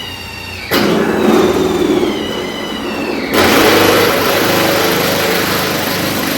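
Cordless drill running hard as it drives a self-tapping sheet metal screw into body panel steel. Its whine sinks in pitch under the load, then about three seconds in it turns louder and rougher.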